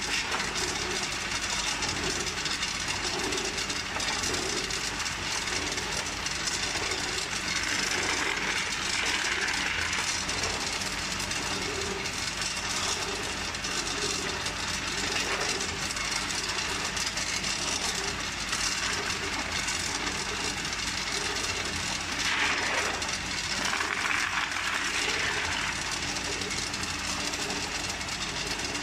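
Tube ice cascading from a tube ice machine's outlet chute onto a plastic scoop, a steady dense clatter of falling ice tubes, with the machine running underneath. This is the harvest stage of the ice-making cycle, when the frozen tubes are released.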